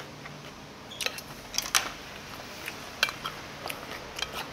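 Eating utensils clicking and clinking against dishes in a handful of sharp, separate strikes, the loudest about a second and a half in, over a steady low room hum.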